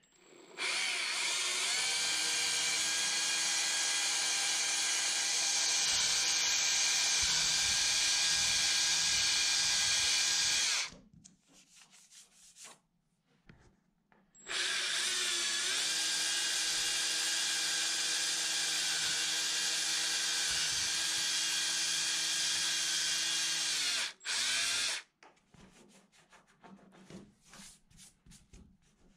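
Cordless drill boring an 1/8-inch pilot hole through a Royalex canoe hull at the end of a cold crack, to stop the crack spreading. The motor runs at a steady speed for about ten seconds, stops, runs again for about ten seconds, then gives one short final burst.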